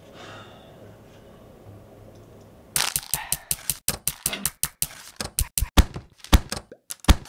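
Quiet room tone for nearly three seconds, then a fast, loud percussive beat of sharp clicks and thuds, cut together from stapler slams and other desk sounds, with the hits coming closer together toward the end.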